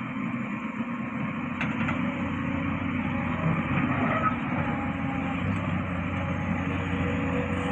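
Diesel engines of heavy earthmoving machinery running steadily, with a sharp metallic click about a second and a half in.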